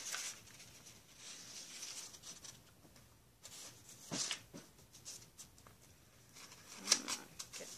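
Sheet of paper being laid onto paint-covered plastic wrap and smoothed down by hand: soft rustling and crinkling, with a few light taps and scrapes, the loudest near the end.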